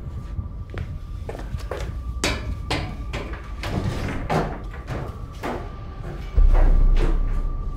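Regular knocks, about two a second, over a steady high hum. About six and a half seconds in comes a sudden deep boom that fades over about a second.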